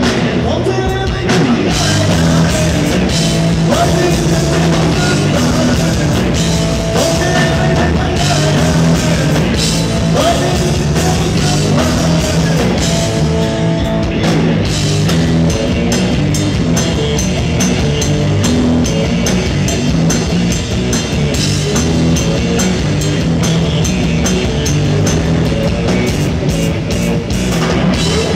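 Live funk-rock trio playing: a Stratocaster-style electric guitar over bass guitar and a drum kit, continuous and loud.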